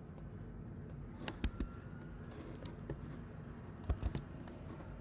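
Computer keyboard clicks and taps in irregular groups: a few about a second and a half in, lighter ones around two and a half seconds, and a louder close group near four seconds, over a steady low background hum.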